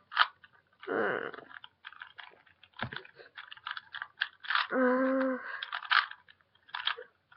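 Plastic Rubik's cube being turned by hand: a run of quick, irregular clicks and clacks as its layers are twisted round. A short hummed voice sound comes about five seconds in.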